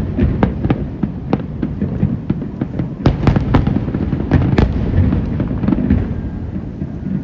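Aerial fireworks going off in quick, irregular succession: sharp cracks and pops over a continuous low rumble of bursts, thinning out near the end.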